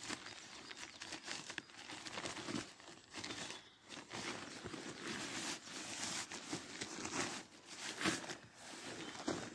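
Tent stuff sack being opened: its drawcord worked loose and the packed ripstop tent fabric rustling and crinkling as it is handled and drawn out, with small clicks from the cord toggle and fabric.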